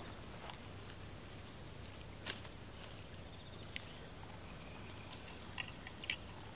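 A steady high-pitched whine over quiet outdoor background, with a few light clicks and taps of a fishing rod and reel being handled, about two seconds in, near four seconds, and twice more near the end.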